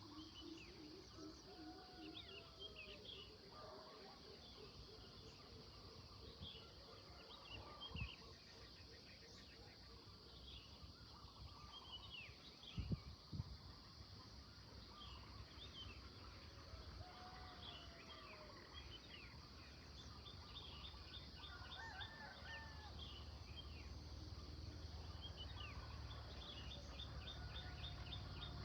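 Songbirds chirping and singing, mostly short chirps with two rapid trills in the second half, over a steady high hiss. Two soft thumps stand out, the louder one about halfway through.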